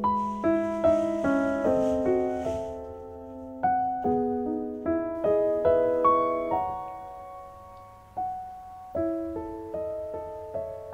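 Gentle background piano music: a slow melody with chords, each note struck and fading away.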